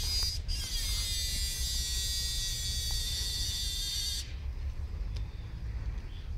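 A high-pitched steady buzz with a brief break near the start, cutting off suddenly about four seconds in, over a low rumble.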